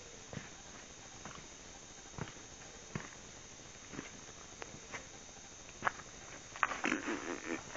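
Footsteps scuffing on a rocky trail, about one step a second. A denser run of louder scuffs and rustling comes near the end.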